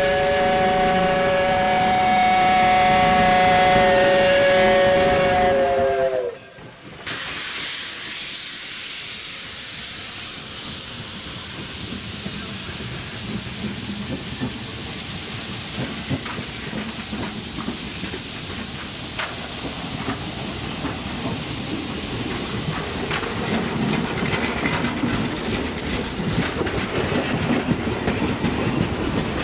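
The steam whistle of Iowa Interstate's Chinese-built QJ 2-10-2 locomotive 6988 sounds one long chord of several tones and cuts off about six seconds in. Then the passenger cars roll past close by with a steady rumble, their wheels clicking over the rail joints, growing louder toward the end.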